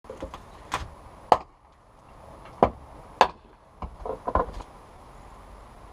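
Sharp wooden knocks and taps, about eight of them at irregular spacing, over a faint steady hiss.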